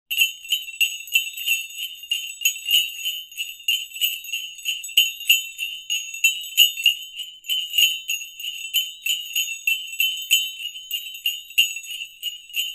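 Jingle bells shaken in a steady rhythm, about four shakes a second, a bright ringing jingle with nothing else under it.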